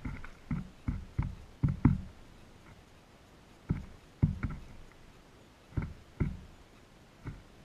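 Blue jays pecking at birdseed scattered on snow: irregular dull taps, a quick run of them at first, then a few more spaced out.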